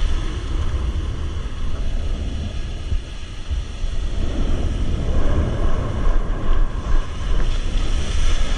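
Ocean surf washing up a sandy beach, with wind buffeting the microphone as a low rumble. It grows louder in the second half as a wave breaks and rushes in.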